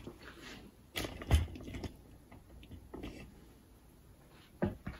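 Scattered knocks and clicks of tools and parts being handled on a wooden workbench, the loudest a second or so in, with a few lighter clicks after it and two more knocks near the end.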